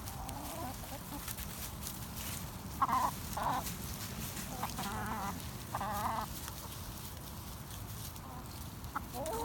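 Backyard laying hens clucking and calling: two short calls about three seconds in, then two longer, wavering calls around five and six seconds in.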